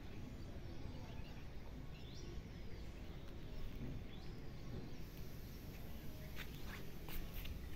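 Steady outdoor background noise with a low rumble and a few faint bird chirps, then several short sharp clicks near the end.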